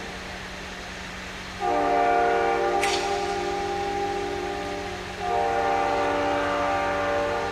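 Multi-chime locomotive air horn sounding two long blasts, the first starting about a second and a half in and the second just after five seconds, over a low steady rumble.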